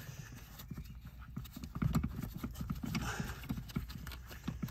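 A quick run of soft, irregular low knocks and handling noises, heaviest in the middle, as hands or tools work on the clutch pedal assembly under the dashboard.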